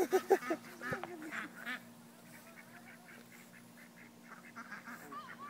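Domestic fowl calling: a few louder short calls in the first two seconds, then a faint quick run of short calls, about four or five a second.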